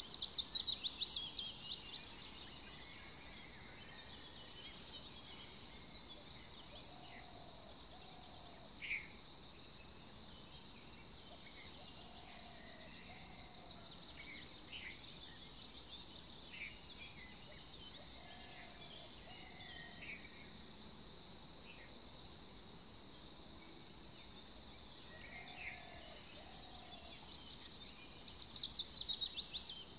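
Birdsong ambience: a fast, falling trill about two seconds long near the start and again near the end, with scattered short high chirps in between. A soft, low two-note call repeats every five or six seconds over a steady high hum.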